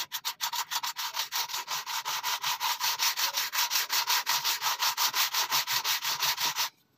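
Metal axe head rubbed by hand back and forth on a sheet of sandpaper to take the rust off its pitted face. The rasping strokes come quickly and evenly, several a second, and stop suddenly near the end.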